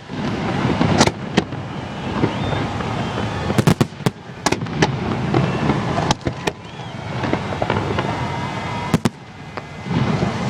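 New Year's fireworks exploding close overhead: a dense run of sharp bangs and crackles over continuous rumbling, with a few rising whistles.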